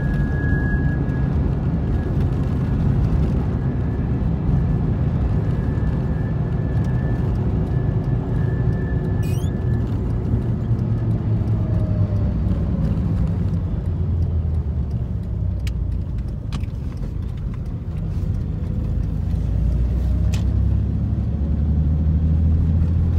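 Toyota Tacoma pickup running down the road: a steady low rumble with a faint hum that slides in pitch a couple of times. This is the humming noise the truck is being checked for.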